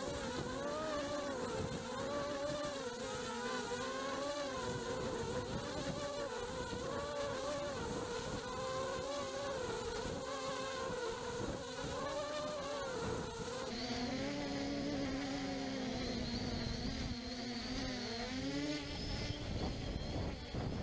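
MJX Bugs 2W quadcopter's brushless motors and propellers buzzing, heard close from the camera mounted on the drone. The pitch wavers up and down continuously as the throttle changes. About two-thirds of the way in, the buzz shifts lower.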